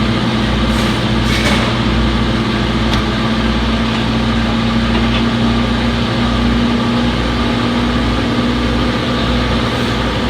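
Front-load washing machine in its spin cycle: a steady motor hum with a held tone and a low, regular throb from the spinning drum.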